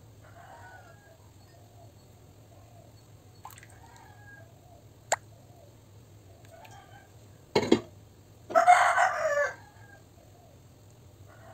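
A rooster crows once, loudly, for about a second, starting about eight and a half seconds in. Fainter short bird calls come before it. A sharp click and a brief clatter come shortly before the crow.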